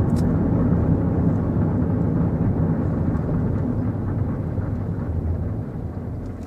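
Volkswagen Polo's 1.4-litre petrol engine and road noise heard inside the cabin while driving: a steady low hum that gradually grows quieter in the second half.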